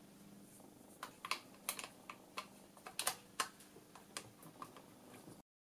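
A run of light, irregular clicks and taps of a small plastic-cased plug-in electronics module being handled and pushed into place on a metal chassis. The sound cuts off abruptly near the end.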